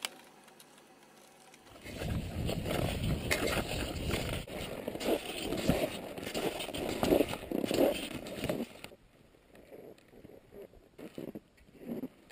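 Cross-country skis sliding and scraping along a packed, tracked snow trail, heard through a camera worn by the skier, with rough wind noise on the microphone. It starts about two seconds in and gives way to fainter, scattered scrapes from about nine seconds in.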